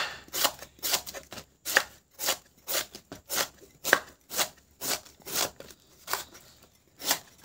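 Kitchen knife slicing a banana blossom into thin rounds on a wooden cutting board, a crisp cut about twice a second with a short pause near the end.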